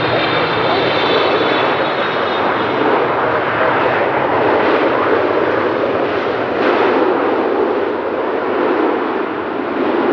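Jet airliner's engines passing close by: a loud, steady rushing noise, with a faint high whine that falls in pitch over the first couple of seconds.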